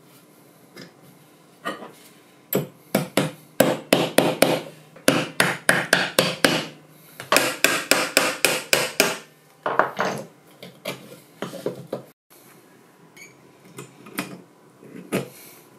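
Hammer strikes in quick runs of about three or four a second, then slower, scattered taps, as a knife handle is fitted.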